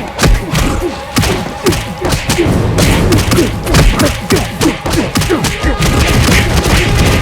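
Rapid series of heavy thuds and impacts, mixed with many short falling tones.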